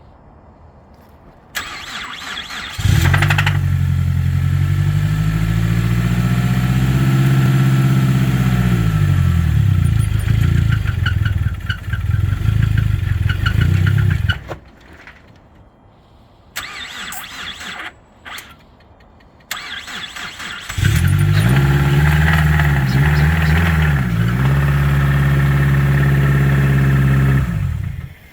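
Car engine cranked by the starter and catching, running for about eleven seconds and revving up and back down before stopping. After two more short bursts of cranking it starts again and runs for about seven seconds. The engine has a knocking rod from an almost completely flattened number 3 rod bearing.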